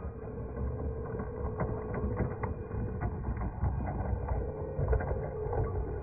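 Small electric drive motors of a battery RC stunt car whining steadily as it drives, with a few light ticks about two seconds in, over a low rumble.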